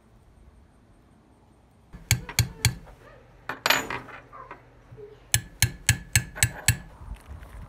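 Hammer striking a steel stamping punch held on a granite block. There are three quick blows, then a clatter of metal punches being handled, then six even blows, about four a second, each with a short metallic ring.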